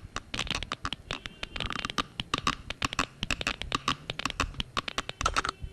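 A dense, irregular run of sharp crackling clicks, several to a second, with a few faint squeaky tones mixed in: a film sound effect loud enough for a character to ask where it comes from.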